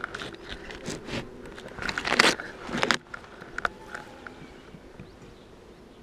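Wooden and plastic beehive parts knocking and scraping as the hive is put back together, loudest about two seconds in, over a steady hum of honeybees. After about three seconds it drops to a few light taps.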